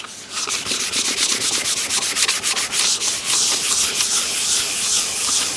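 Sandpaper rubbed by hand over the clock frame in rapid back-and-forth strokes, starting about a third of a second in. It is a light scuff-sanding to key the surface so paint will bond.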